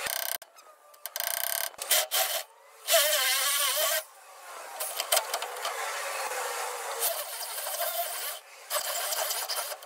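Corded hammer drill grinding into a steel ball-joint rivet, sped up so the sound runs fast and high with no low end. It stops and starts several times.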